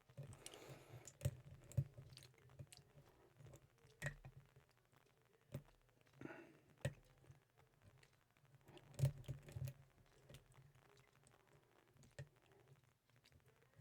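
A lock pick raking the pin stack inside an Ace 54541 brass padlock's keyway, making faint, irregular clicks and taps with a few sharper clicks scattered through.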